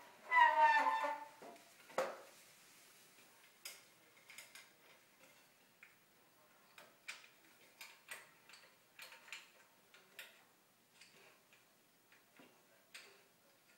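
Wooden folding step stool being unfolded: a short creak as the steps swing out, then a sharp wooden knock as they settle. This is followed by a scatter of light clicks and taps from the wooden steps and joints being handled.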